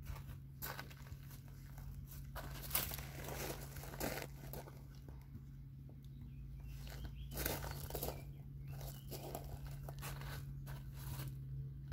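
Footsteps of sandals shifting and crunching on loose gravel, irregular, with the strongest crunches about 3 s and 7.5 s in, over a steady low hum.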